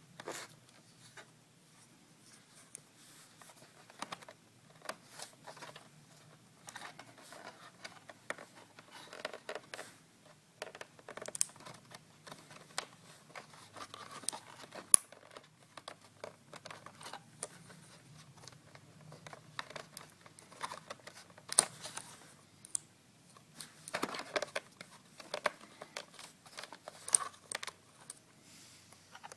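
Irregular clicks, taps and scrapes of hands handling a laptop hard drive and its plastic and metal bay parts, with busier bursts of clicking a few times.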